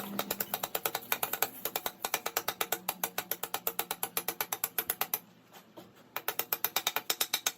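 Hand ratchet wrench clicking rapidly, about ten clicks a second, as a fastener on the motorcycle engine is turned; the clicking stops about five seconds in and starts again a second later.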